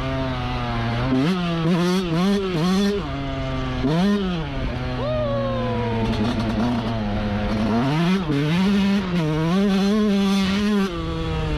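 Yamaha YZ125 single-cylinder two-stroke dirt bike engine being ridden, revving up and dropping back in repeated bursts as the throttle is worked, with a long falling pitch about five seconds in as it comes off the throttle.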